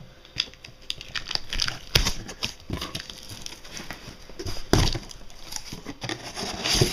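Cardboard shipping boxes being handled and worked open: irregular scraping, crinkling and tearing of cardboard and packing tape, with two louder knocks about two seconds and nearly five seconds in.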